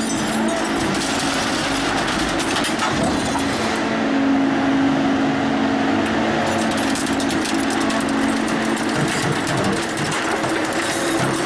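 Shark 1100 hydraulic scrap shear running with a steady, loud mechanical hum. From about halfway through there is sharp crackling and clicking as its blade head comes down onto the scrap sheet and rebar.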